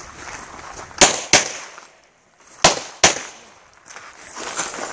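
Four pistol shots fired in two quick pairs, the pairs about a second and a half apart, each shot followed by a short echo.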